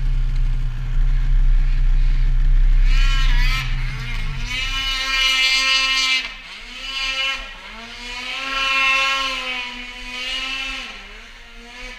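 A snowmobile engine runs with a steady deep note, then winds down and stops about four and a half seconds in. Meanwhile another snowmobile's engine revs up and down again and again, its pitch rising and falling with the throttle.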